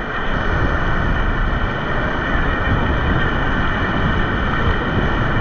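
Whitewater rapids rushing: a loud, steady roar of river water.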